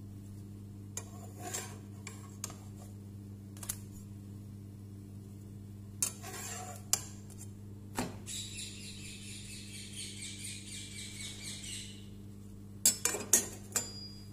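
Kitchenware clinking and knocking: a frying pan and metal spatula striking a ceramic plate as pancakes are moved onto it, with a quick run of the loudest clinks near the end. A few seconds of hissing in the middle, over a steady low hum.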